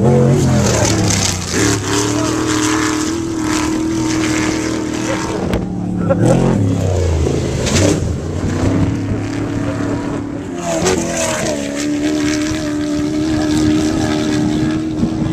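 Off-road desert race vehicles' engines revving hard as they run through the jump section. The pitch climbs and holds high, drops around the middle, then climbs and holds high again.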